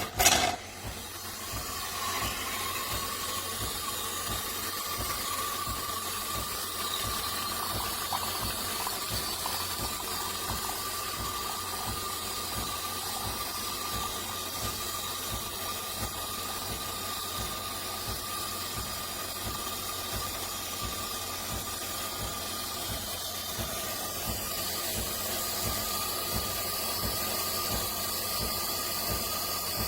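De'Longhi Rivelia automatic espresso machine running with a steady hiss and a thin whine, like steam or milk frothing, just after a sharp knock at the start.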